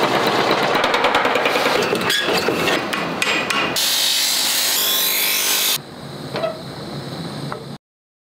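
Power hammer pounding red-hot steel in rapid blows, then a grinding wheel hissing against steel for about two seconds. Quieter shop sounds follow before the sound cuts off to silence near the end.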